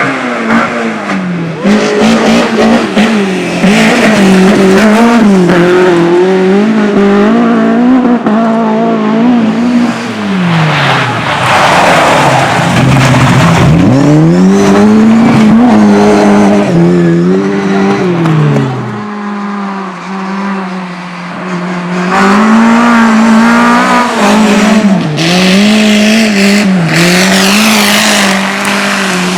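Race car engine revving hard, its pitch climbing and dropping over and over as it accelerates, brakes and shifts through a slalom course, with tyres squealing. About two-thirds of the way through, the engine holds a steadier note and the sound briefly drops in level.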